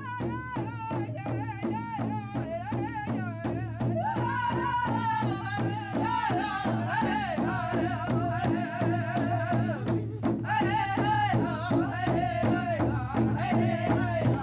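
Background music: a quick, steady beat under a wavering melody line with vibrato.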